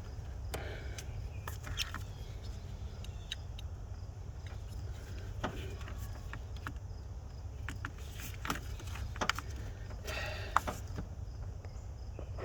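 Scattered light clicks and taps of a screwdriver and hands working on small screws in an engine bay, over a steady low hum.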